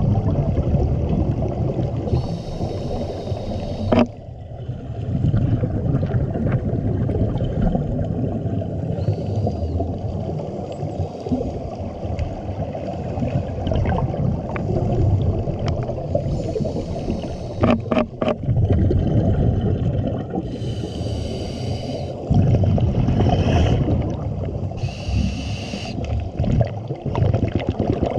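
Underwater sound of a scuba diver breathing through a regulator. A hissing, faintly whistling inhalation comes every four to five seconds, and each is followed by bubbling exhalations. A few sharp clicks fall about four seconds in and again around eighteen seconds.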